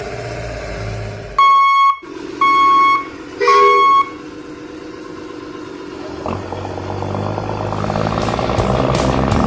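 Three loud electronic horn beeps at one steady pitch, each about half a second long. About six seconds in, a vehicle engine sound starts and grows steadily louder.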